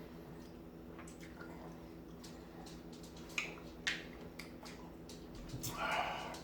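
Faint wet mouth sounds of a person chewing raw lemon: a few soft clicks and squelches, two of them sharper about three and a half and four seconds in, and a longer breathy sound near the end, over a steady low hum.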